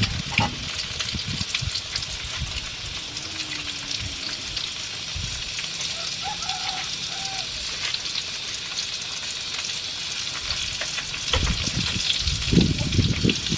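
Eggplant omelette (tortang talong) frying in hot oil in a wok over a wood fire: steady sizzling with dense fine crackles. A few low knocks near the end.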